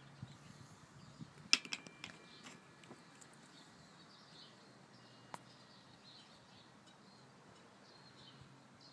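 A few sharp plastic clicks about a second and a half in as a bottle lid is handled, one more single click a few seconds later, and faint bird chirping in the background.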